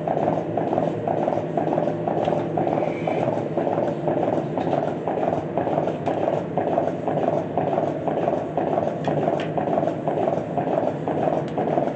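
Milking machine pulsator clicking and hissing in an even rhythm, about twice a second, as it alternates the vacuum on the teat cups, over the steady hum of the milking system.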